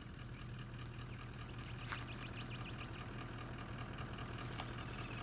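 Insects chirping in a fast, even, high-pitched pulse, over a low steady hum.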